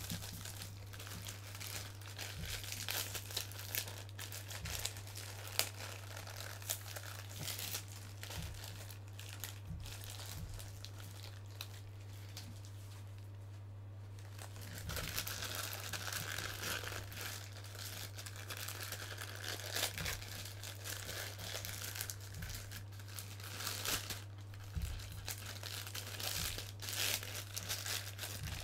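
Packing wrap crinkling, crumpling and tearing as action figures are unwrapped by hand, in irregular crackles that ease off briefly about halfway through and then pick up again. A steady low electrical hum runs underneath.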